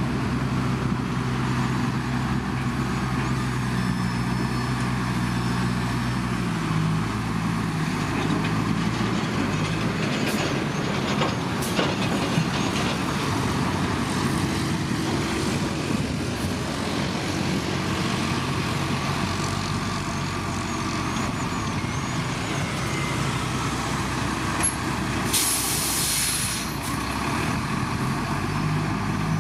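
Heavy diesel earthmoving machinery running steadily, its engine pitch shifting about seven seconds in. Near the end there is a short, sharp hiss of air, like an air brake being released.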